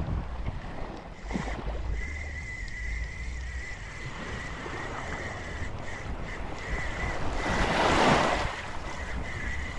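Ocean surf with wind buffeting the microphone; a wave rushes in and recedes, loudest near the end. A thin steady high tone runs underneath from about a second in.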